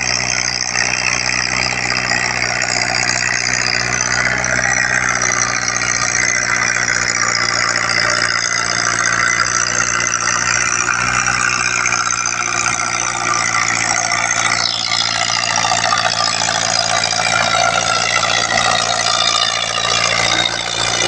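Russian tractor's diesel engine labouring steadily as it pulls a heavily loaded sugarcane trailer, its black exhaust smoke showing the strain. A motorcycle passes by about two-thirds of the way in, its pitch dropping quickly.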